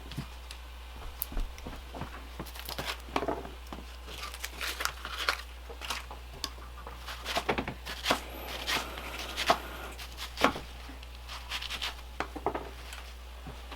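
Irregular rustling and crinkling with light clicks, in uneven clusters, as of something thin being handled.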